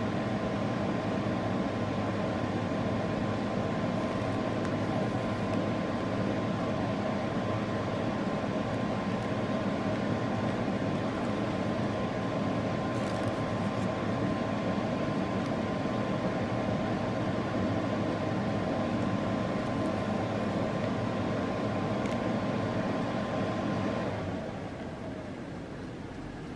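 A steady motor hum with a held whine, like an appliance or fan running, that winds down and fades about 24 seconds in.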